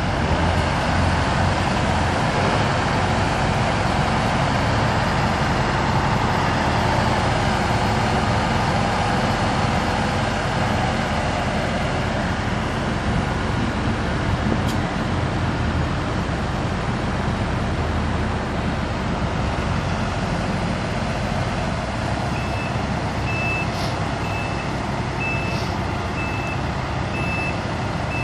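Diesel engines of heavy machinery running steadily under load. From about 22 seconds in, a reversing alarm beeps at an even pace, a little more than once a second.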